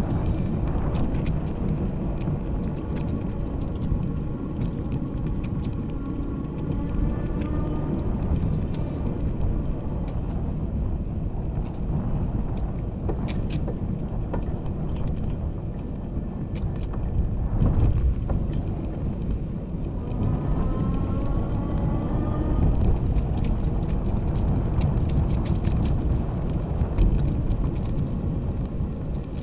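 Steady low rumble of wind and rolling noise on the microphone of an action camera travelling along a paved trail, with scattered light clicks.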